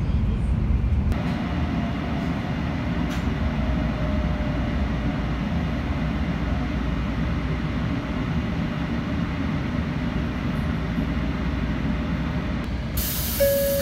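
Tokaido Shinkansen Kodama train heard from inside the passenger car: a steady low rumble as it runs into the station and draws alongside the platform. Music comes in near the end.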